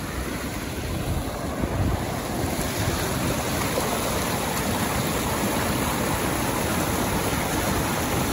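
Turbulent water rushing and churning below a spillway outlet: a steady rush of water noise that grows a little louder about two seconds in.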